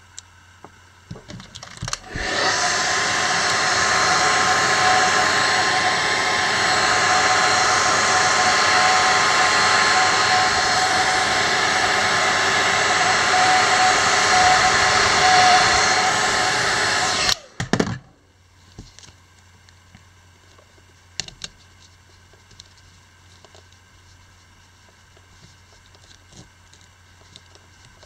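Hair dryer switched on about two seconds in and blowing steadily at full speed, with a steady whine in its rush of air, heating the phone's battery to soften its adhesive. It shuts off suddenly about fifteen seconds later, leaving faint clicks of handling.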